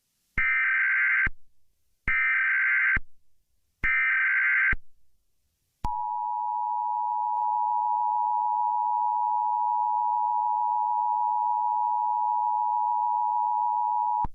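Emergency Alert System broadcast tones: three short SAME header data bursts, each about a second long, then the steady two-tone EAS attention signal held for about eight seconds before cutting off. Together they announce that an emergency alert message follows.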